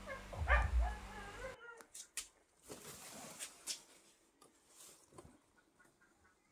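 A pet's brief, wavering whining cry in the first second and a half, then quiet with a few scattered small clicks and knocks.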